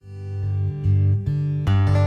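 Background music led by acoustic guitar, fading in at the start, with notes changing every half second or so.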